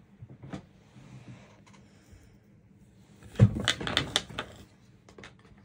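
Objects being handled and put back on a tabletop: a thump about three and a half seconds in, then about a second of clatter and rustling, with a few faint taps before and after.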